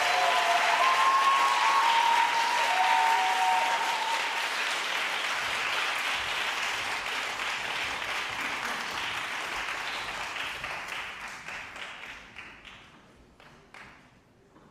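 Audience applauding in a concert hall, with a few voices calling out in the first few seconds; the clapping thins out and dies away to a few scattered claps near the end.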